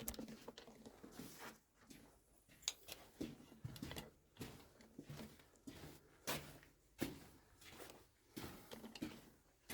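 Quiet, irregular footsteps and scuffs, a short knock every half second to a second, inside an underground sandstone tunnel.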